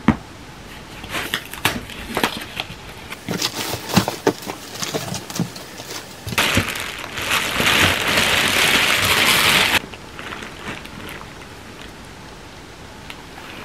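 A cardboard box being opened, with scattered crackles and clicks of tape and flaps. About halfway through comes a loud stretch of plastic-bag crinkling and tearing as the wrapping around a large stuffed body pillow is broken open. It stops suddenly and is followed by soft handling of the fabric pillow.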